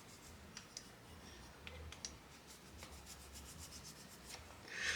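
Faint rubbing and scraping with small scattered clicks as a plastic model-kit part is cleaned up by hand, with a run of fine rapid ticks in the middle.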